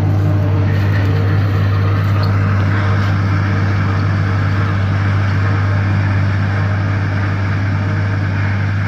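John Deere 4430's six-cylinder diesel engine running steadily under load, powering a John Deere 3950 forage harvester as it chops corn: a constant low drone with a rushing noise from the chopper over it, slightly louder from about two seconds in.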